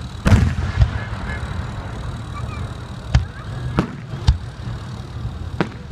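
Aerial fireworks bursting: about six sharp bangs at irregular gaps, the loudest about a third of a second in, each trailing off in a short rumble.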